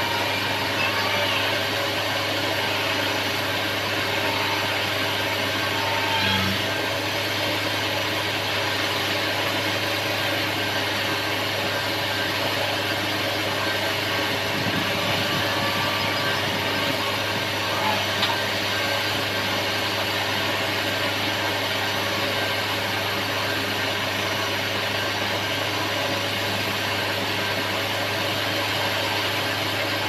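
Hyundai wheeled excavator's diesel engine running steadily at a constant pitch while its boom and bucket dig into a sand pile.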